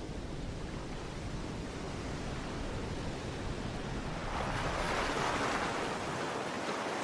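Ocean surf: a steady wash of waves, with a wave surging up louder about four seconds in.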